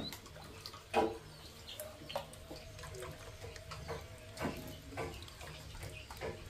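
Plastic ladle scooping and pouring syrupy kolak from a large aluminium pot into an enamel pot, with liquid splashing and a few short knocks of the ladle against the pots, the loudest about a second in.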